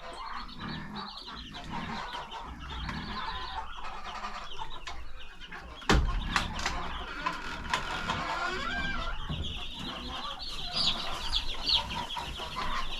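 A brooder full of Cornish Cross meat chicks peeping continuously, with one sharp thump about six seconds in and a few clicks after it.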